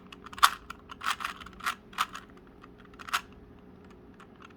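Plastic 3x3 Rubik's cube being turned by hand: a run of quick irregular clicks as the layers snap round, the loudest in the first three seconds, then fainter. The same corner-placing move sequence is being repeated over and over to get the last-layer corners into place.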